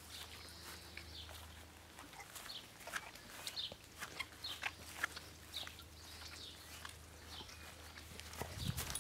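Quiet outdoor ambience with a low steady hum and scattered soft ticks and clicks, with a louder rustle building near the end.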